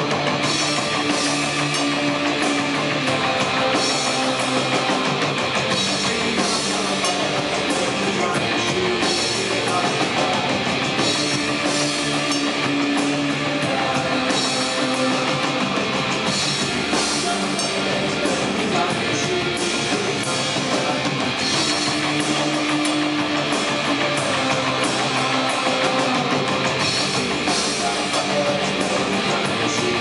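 A live industrial rock band playing loudly: a drum kit, guitar and keyboards, with the singer performing into a microphone cupped in his hands.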